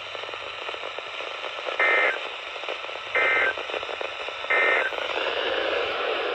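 Emergency Alert System end-of-message over radio static: three short digital data bursts about 1.3 seconds apart, the code that closes the Required Weekly Test.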